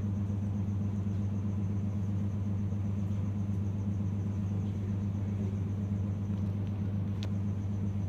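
Haier air conditioner indoor unit's fan motor running with a steady low hum. The hum comes from the motor's wiring connector (jack) being pressed into the unit's base, which carries the motor's vibration into the housing.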